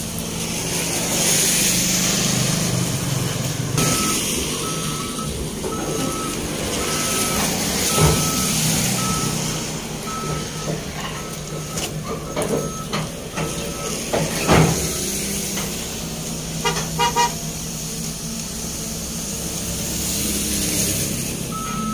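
Tracked excavator's diesel engine running while it is driven off a lowbed trailer, its travel alarm beeping at about one to two beeps a second for most of the first half and starting again near the end. A few sharp clanks of metal sound in between.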